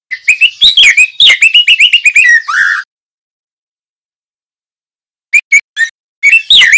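Young male white-rumped shama (juvenile murai batu) singing: a rapid run of quick sliding notes lasting nearly three seconds, then a pause. Near the end come three short notes and another rapid phrase.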